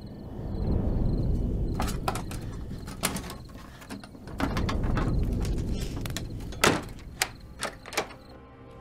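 Horror short film's soundtrack: a low, swelling rumble with a scattering of sharp knocks and clicks, the loudest knock about two-thirds of the way in.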